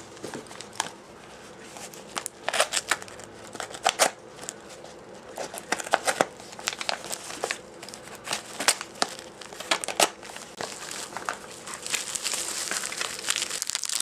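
Crinkly plastic packaging and a padded mailer being handled and unwrapped by hand, with irregular sharp crackles that turn into dense, continuous crinkling near the end.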